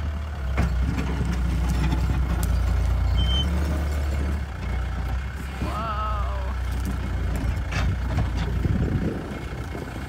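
Diesel engine of a Caterpillar compact track loader running under load as it digs out soil and concrete slabs, its low drone changing note about halfway through, with a few sharp knocks from the work.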